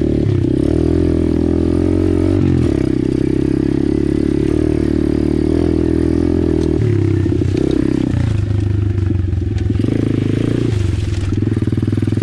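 A 125cc single-cylinder four-stroke pit bike engine (Apollo RFZ) running under load on a dirt trail. The engine note falls and rises several times as the rider works the throttle.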